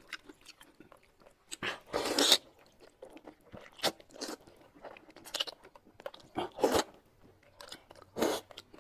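Close-miked eating sounds: a person slurping and chewing mouthfuls of food in a series of loud bursts, the loudest about two seconds in, with softer mouth clicks between.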